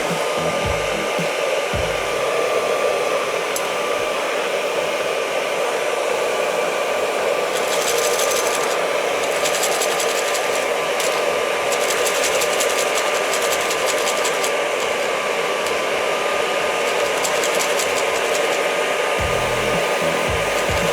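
Hair dryer running steadily, blowing hot air into a tin-can popcorn popper, with a constant motor whine over the rush of air. Bursts of light clicking come through twice, about eight seconds in and again near the end: kernels rattling and popping in the can.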